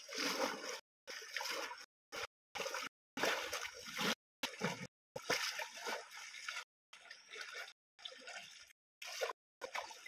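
Stream water splashing as hands slap and churn it, in a string of short bursts about one or two a second, cut apart by sudden gaps of dead silence.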